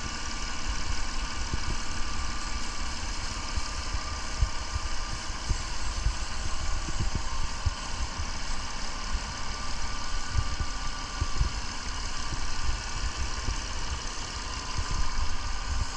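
Mercedes-Benz C230 engine idling steadily after an oil cooler gasket replacement, with scattered low thumps.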